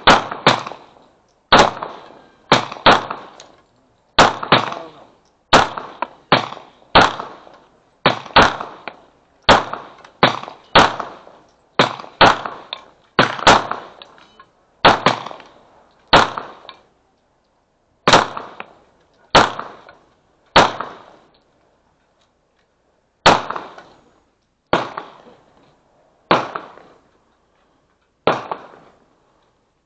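Staccato XC compensated 2011 pistol firing a long string of shots, mostly in quick pairs about a second apart, each shot sharp with a short echo tail. The shots come further apart near the end.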